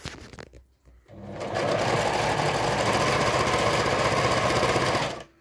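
Pfaff Variomatic 6085 sewing machine sewing its K stretch stitch. It starts about a second in, runs steadily at speed for about four seconds and stops just before the end.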